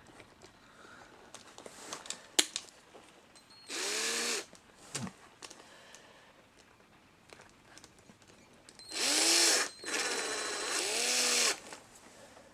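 Small electric drill triggered in three short bursts, its motor winding up and spinning down each time, the last run the longest. A sharp click comes shortly before the first burst.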